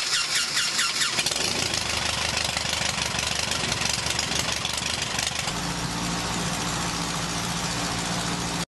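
Continental O-200 four-cylinder air-cooled aircraft engine running with its propeller turning. About five and a half seconds in, the sound settles into a steadier hum.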